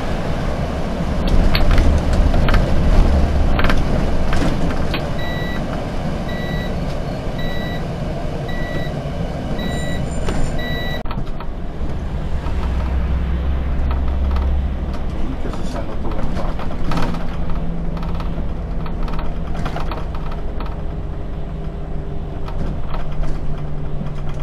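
A bus's engine and road noise heard from inside the driver's cab, with scattered rattles and knocks. In the middle a high electronic beep repeats about one and a half times a second for around six seconds, then stops.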